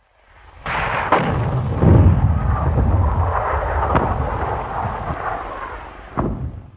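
Artillery fire and explosions: a continuous rumbling roar broken by sharp bangs, two about a second in, one near four seconds and one near the end.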